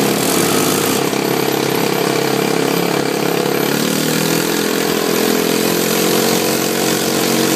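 ATV engine running steadily while riding, a continuous buzzing drone whose pitch shifts slightly about four seconds in, over a steady hiss.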